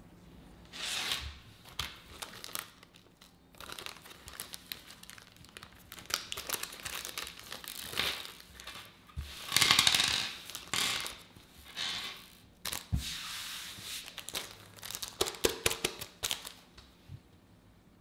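Clear plastic parts bag crinkling in short bursts as it is handled and emptied, loudest about halfway through. Small fingerboard parts (screws, nuts and trucks) drop onto the table with light clicks.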